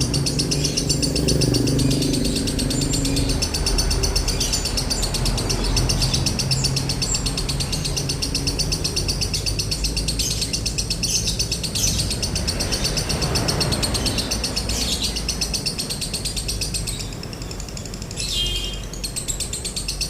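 Lovebird giving a long, rapid trilling chatter, the 'ngekek' sought in a 'konslet' bird, which breaks off briefly near the end and then starts again.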